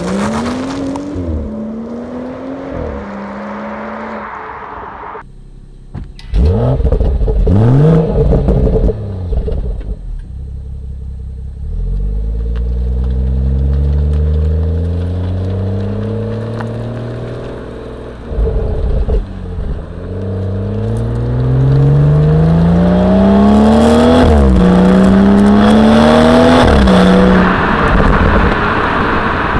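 BMW 440i's 3-litre turbocharged straight-six, heard at the exhaust, accelerating hard several times. The note climbs through each gear and drops sharply at each quick upshift of the 8-speed automatic, loudest near the end.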